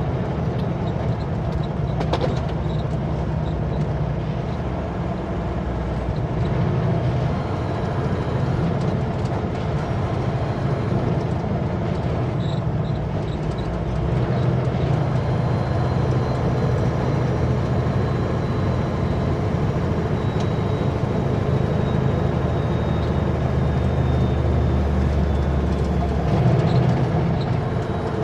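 Kenworth W900L semi truck's diesel engine and road noise while cruising on the highway, a steady low drone. The deepest part of the drone grows stronger about halfway through and eases back near the end.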